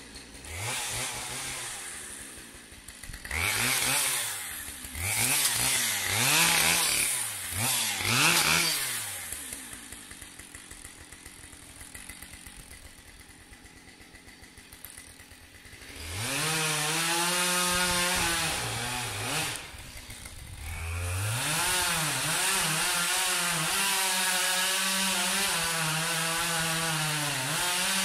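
Husqvarna 572 XP two-stroke chainsaw revved in about four short throttle blips, then idling. From about halfway through it is held at high revs cutting wood, its pitch wavering under load, with one brief dip before it carries on cutting.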